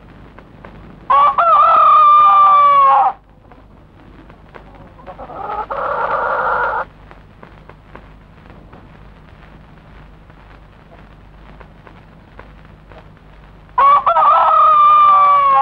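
A rooster crowing twice, each crow about two seconds long and about twelve seconds apart. Between them, about five seconds in, comes a shorter, rougher animal call.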